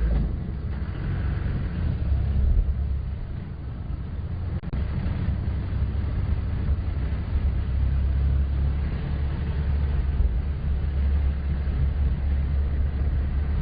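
Off-road safari vehicle driving along a dirt track: a steady low engine and road rumble, heard while riding on board.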